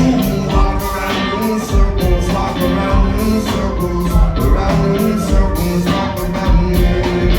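Live rock band playing a stretch of the song without lead vocals, drums keeping a steady beat under bass and other instruments.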